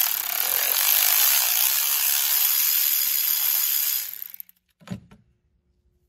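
Compressed-air tool running with a steady hiss for about four seconds, then cutting off, followed by two light knocks.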